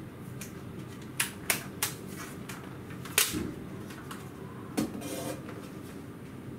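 Sharp plastic clicks and snaps as the bottom cover of a Dell Precision 7510 laptop is unlatched and lifted off: three quick clicks about a second in, a louder snap around three seconds in, and another click with a short rustle near five seconds.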